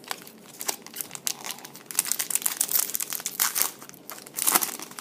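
Foil wrappers of trading-card packs crinkling and tearing as packs are ripped open: a dense run of crackles with a louder rip about four and a half seconds in.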